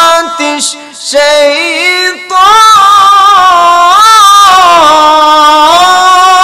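A man chanting a Quranic verse in Arabic in a melodic, ornamented recitation style, his high voice amplified through a microphone. After two short phrases, he holds one long wavering note from about two and a half seconds in.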